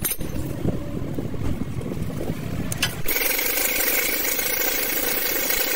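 A vehicle engine running with an uneven low rumble. About three seconds in, the sound switches abruptly to a steady, higher-pitched machine whine over hiss.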